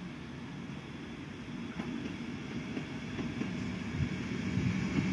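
Low rumble of a passing train, growing steadily louder toward the end, with a low hum rising under it.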